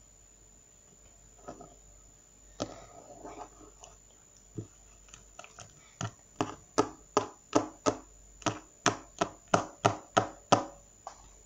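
Slime being pressed and squeezed by hand on a tabletop, making sharp wet clicking pops. A few scattered ones come first, then a steady run of about three a second in the second half.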